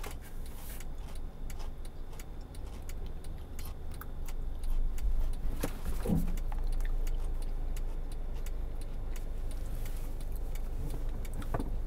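Inside a stationary car: a low, steady rumble from the vehicle, with faint irregular clicks and handling noises. There is one short, falling, voice-like sound about halfway through.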